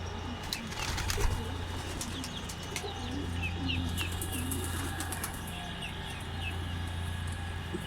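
Pigeons cooing in repeated low calls, with small high bird chirps over them and a few sharp clicks about a second in.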